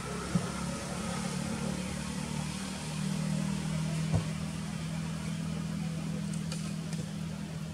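A motor vehicle's engine running steadily, a low hum that grows louder about three seconds in. Two short knocks come through, one near the start and one a little after four seconds.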